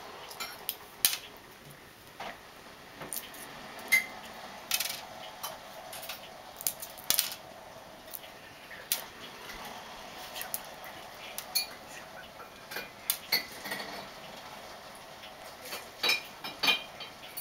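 Boiled egg being peeled by hand: the shell cracks and is picked off in irregular small clicks and crackles.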